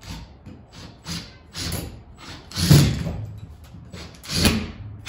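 Cordless drill driving 3-inch lag screws through a metal swivel mount into a wooden ceiling joist, in short bursts of a second or less, about six times, the loudest near three and four and a half seconds in.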